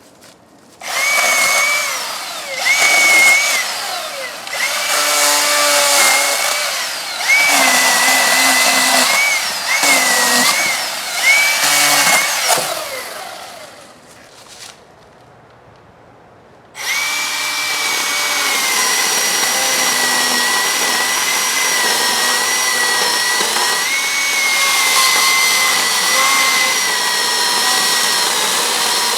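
Milwaukee M18 cordless electric chainsaw cutting wood: the motor's whine sags in pitch again and again as the chain bites into the wood, then recovers. It stops for a few seconds, then runs again with a steadier pitch and only small dips.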